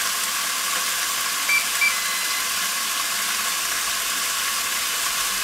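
Steaks sizzling steadily inside a closed Tefal OptiGrill contact grill. About one and a half seconds in, the grill beeps twice and then gives a longer tone, its signal that the steaks have reached the next doneness stage (medium).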